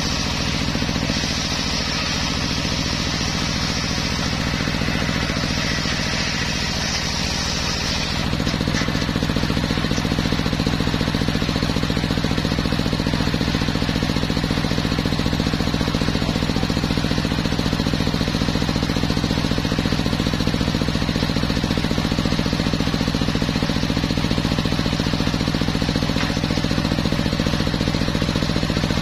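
Homemade circular-saw sawmill running steadily. About eight seconds in the sound changes: a high hiss stops and the low, even machine sound gets louder.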